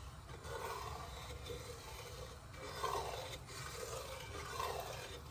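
Steady low rush of the stove heating the pot, with the vinegar, sugar and salt brine swishing in repeated swells as it is stirred to dissolve.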